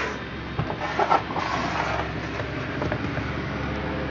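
Handling noise from a McCulloch 172 chainsaw, not running, being turned around on a workbench: a few short knocks and scrapes, the strongest about a second in, over a steady background hum.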